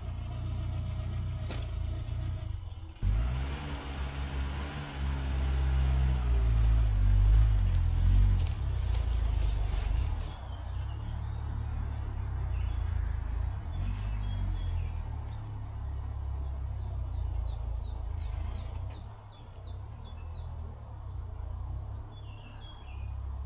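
A car's engine running under load as it tows a stalled car out on a strap. It gets suddenly louder about three seconds in and eases back after about ten seconds. Birds chirp in the background from partway through.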